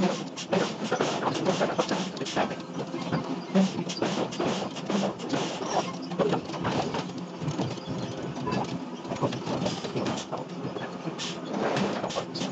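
Factory metalworking machinery running with a steady hum, overlaid with many irregular metallic clanks and knocks.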